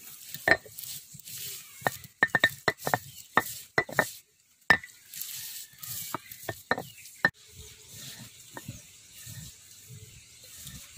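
A stone roller crushing dry roasted split chickpeas on a flat grinding stone. The first seven seconds or so bring a quick run of sharp cracks and knocks as the brittle grains break. After that it settles into a softer rolling grind as the chickpeas turn to powder.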